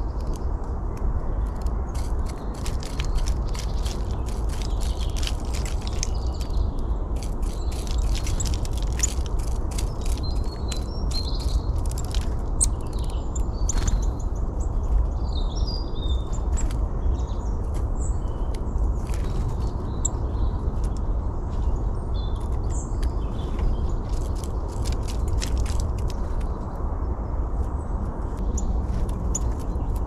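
Small birds chirping and calling in short, scattered notes, with scattered clicks, over a steady low rumble that is the loudest sound throughout.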